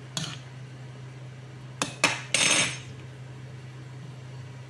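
Metal spoon clinking and scraping against a ceramic bowl of soaked couscous: a few sharp clicks, then a brief scrape about two and a half seconds in.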